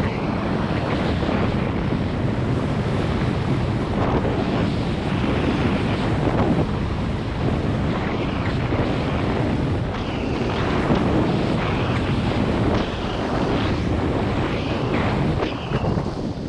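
Wind buffeting a GoPro's built-in microphone during a fast downhill ski run, with the hiss and scrape of skis carving on packed snow swelling every second or two with each turn.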